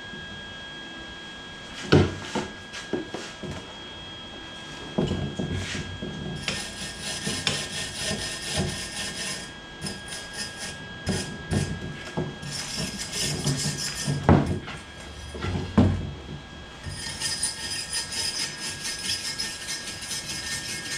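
Wire-feed welder laying welds on an exhaust pipe: several stretches of crackling sizzle, each a few seconds long, starting about six seconds in. Sharp knocks come earlier, about two seconds in and again near fourteen and sixteen seconds, as the pipe is handled on the wooden bench.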